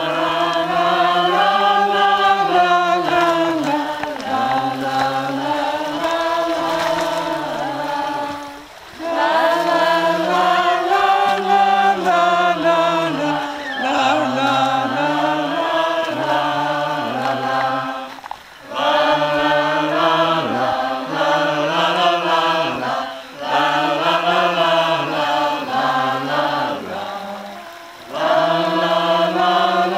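A group of voices singing a slow chant together in unison, in long melodic phrases with short pauses between them.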